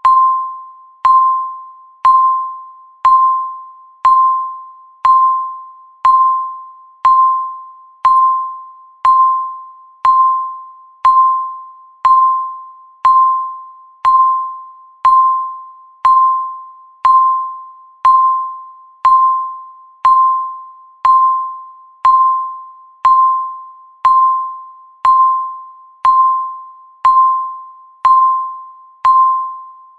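Countdown timer beep: a single clear electronic chime struck once a second, each ringing out and fading before the next, about thirty in all. These are the last thirty seconds of the count, ticking down to zero.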